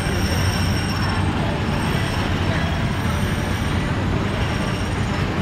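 Disneyland Autopia ride cars' small gasoline engines running steadily in the loading area, a continuous low engine drone under general crowd noise.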